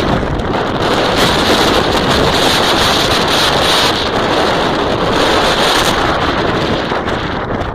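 Strong wind blowing hard across the microphone: a loud, steady rush with small gusting surges.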